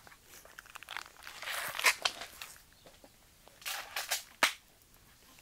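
Plastic seat and metal legs of a tiny homemade camp chair being fitted together and sat on: rustling and crinkling broken by several sharp clicks, the loudest a little under two seconds in and again about four and a half seconds in.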